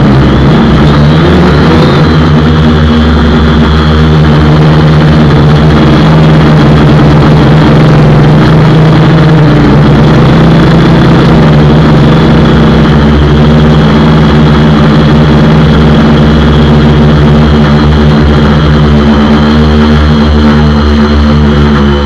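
DJI F450 quadcopter's four brushless motors and propellers buzzing loud and close, heard from a camera mounted on the frame. The pitch wavers as the throttle changes, most clearly in the first two seconds and again about ten seconds in.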